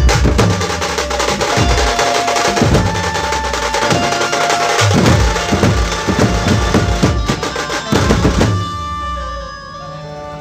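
Dhumal band drumming: several large barrel drums struck hard with sticks in a fast, dense rhythm, under a melody of held notes. The drumming stops about eight and a half seconds in, leaving the held notes.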